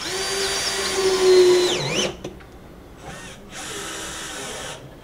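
Cordless drill working on a wooden birdhouse box. It whines steadily for about two seconds, and its pitch drops as it slows under load just before it stops. A second, quieter run of about two seconds follows.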